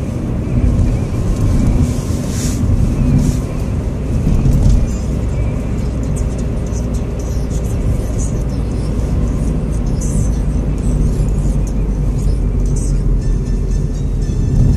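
Steady car cabin rumble of engine and road noise while driving, with music playing from the car radio over it.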